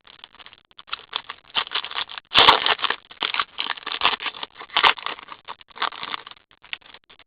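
Plastic and cardboard trading-card packaging being torn open and handled, in irregular crinkling crackles, loudest about two and a half seconds in.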